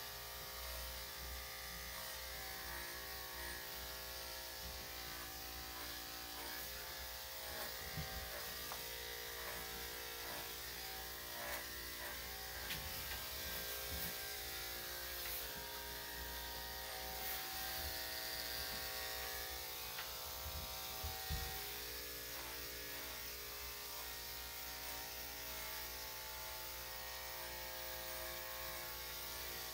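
Electric dog grooming clippers fitted with a #7 blade running steadily through the coat, a constant hum, with a few brief knocks in the middle.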